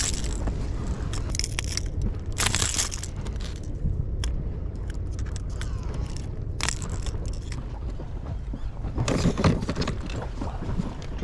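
Fishing tackle being handled: irregular metallic clicks and rattles from a lip gripper, pliers and the lure's hooks while a small fish is unhooked, over a steady low rumble. A louder knock and rustle about nine seconds in.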